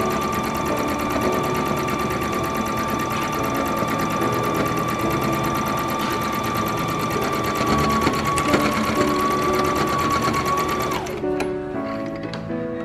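Electric sewing machine running steadily, sewing a straight stitch diagonally across a layered cloth towel, with a constant motor whine and a fast, even stitching rhythm. It stops suddenly about eleven seconds in.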